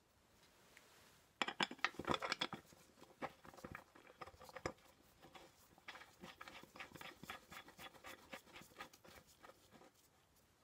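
A rag in gloved hands rubbing and wiping the painted housing of a tractor's transmission: a faint, quick run of scratchy scuffs and small clicks, busiest about a second and a half in and carrying on irregularly almost to the end.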